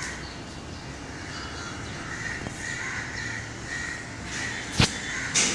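A bird calling several times in short repeated calls, with a sharp click near the end.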